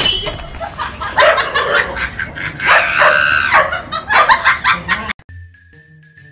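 A dog barking loudly over music. About five seconds in it cuts off sharply, leaving quiet music with steady notes.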